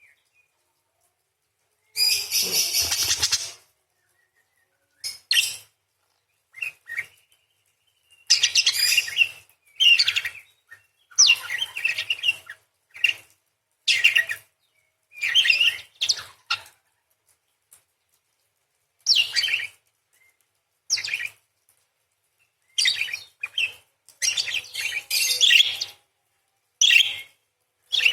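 Parakeet giving long, shrill chattering calls in about a dozen separate bursts, each half a second to two seconds long, with sudden silences between them. The longest burst comes about two seconds in.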